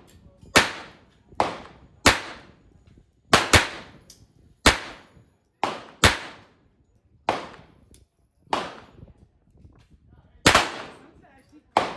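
Semi-automatic pistol shots fired at a steady pace, about a dozen, roughly one a second with a quick pair here and there, each a sharp crack trailing off in a short echo.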